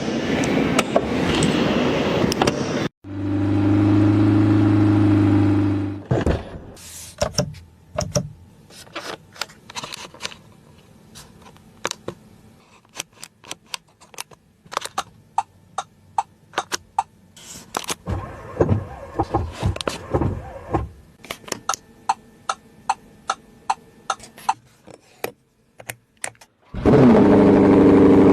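Lamborghini Temerario's twin-turbo V8 running. A loud rushing stretch comes first, then about three seconds of a steady engine note. A long, much quieter stretch of scattered sharp clicks and pops follows, and the loud engine note comes back near the end.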